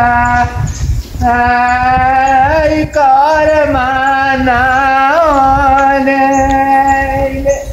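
Background music: a woman's singing voice holding long notes that bend and waver in pitch, with short breaks between phrases.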